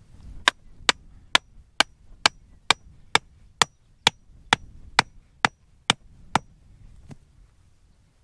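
Hammer driving a wooden stake into the ground: about fourteen sharp, even strikes, roughly two a second, then one lighter tap.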